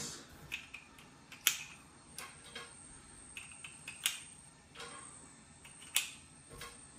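Small shell casings for a CO2 BB revolver clicking into a speed loader: a few sharp clicks with faint ticks between.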